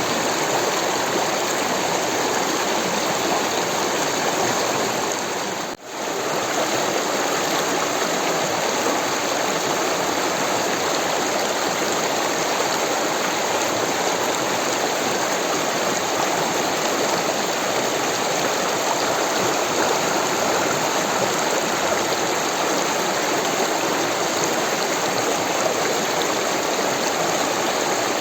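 Rushing water, a steady even rush of flowing water, with a brief dip in level about six seconds in.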